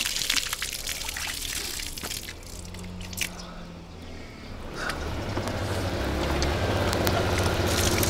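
Water from a hand-operated pitcher pump pouring and splashing into a bucket as the handle is worked. From about five seconds in, a low engine rumble grows louder, a motor scooter approaching.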